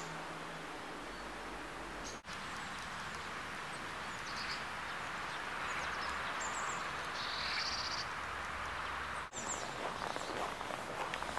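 Outdoor ambience: a steady background hiss with small birds giving short, high chirps here and there, most of them in the middle of the stretch. The sound drops out briefly twice, at the cuts.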